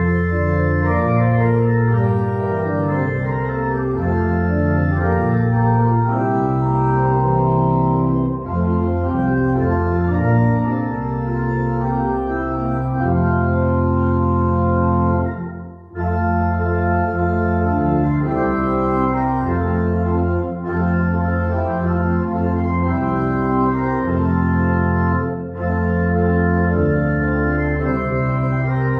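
Organ music: full held chords changing every second or so, with a brief break about halfway through.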